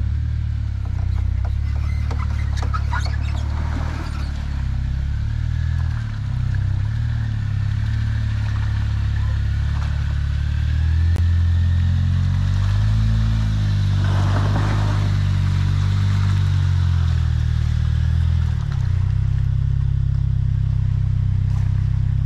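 Jeep Wrangler Rubicon's engine running at low revs, its pitch stepping up and down with the throttle while crawling an off-road trail. A faint whine rises and falls in the middle, with a few light clicks a few seconds in and a short rush of noise about two-thirds through.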